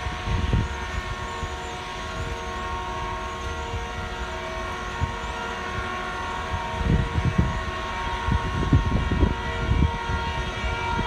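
Railway ballast-cleaning machine running steadily, a continuous drone carrying several steady tones, with irregular low gusts of wind buffeting the microphone that grow stronger in the second half.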